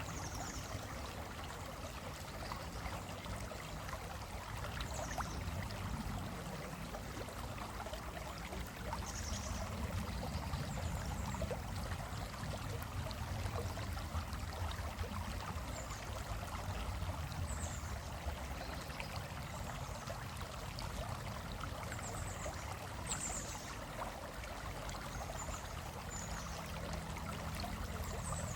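Stream flowing across rocks: a steady rush and trickle of water.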